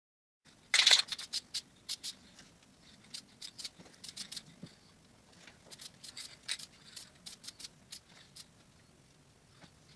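A string of irregular light clicks and taps from handling things at a workbench around a steel bracket clamped in a bench vise. The first click, about a second in, is the loudest, and the taps die away near the end.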